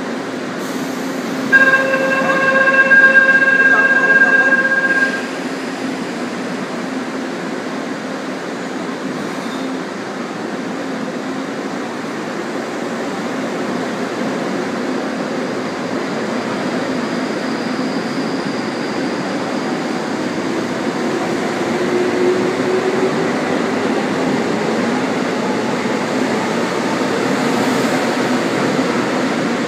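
A refurbished resistor-controlled Seoul Line 1 electric train departing: a steady electronic door-closing warning tone sounds for about three seconds near the start. Then the train pulls away with a continuous rumble of motors and wheels on rail, its motor tone rising slightly as it gathers speed.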